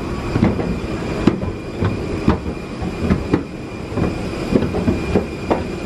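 Footsteps and irregular knocks of passengers walking on a jet bridge's floor, over a steady rumble and a steady high-pitched whine.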